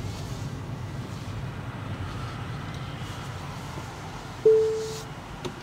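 Cabin noise of a Tesla Model 3 slowing to a stop: a steady low road rumble with a faint electric-motor whine falling in pitch as the car slows. About four and a half seconds in, a single loud chime sounds and fades over half a second.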